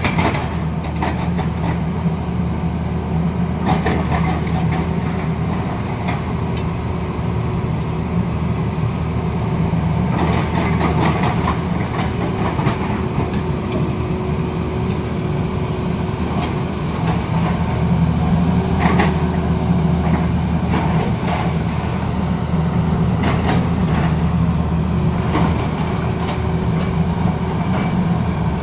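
Tata Hitachi excavator's diesel engine running steadily with a low hum while the boom and its hydraulic rock breaker move. Several short clusters of sharp knocks stand out along the way.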